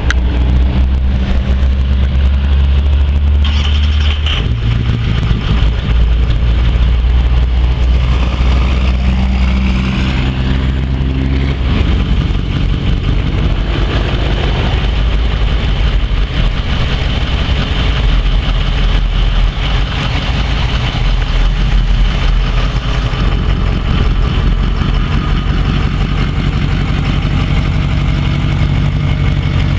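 A 2005 Ford F-250 Super Duty pickup's engine idling steadily, its low note shifting slightly about 4 and 12 seconds in.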